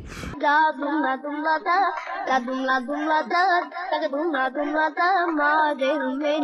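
A song with a high voice singing a wavering, ornamented melody and no bass beneath it, cutting in abruptly just after the start in place of the open-air background noise.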